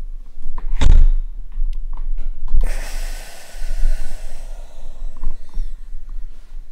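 Handling noise close to a desk microphone: a heavy thump about a second in and a few light clicks, then a sharp click followed by a breathy hiss that fades out over about two seconds.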